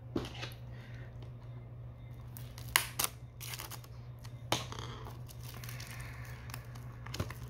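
Plastic shrink wrap on a Blu-ray case being cut open and peeled off: crinkling and rustling with a few sharp snips and clicks, the loudest about three seconds in and again about four and a half seconds in.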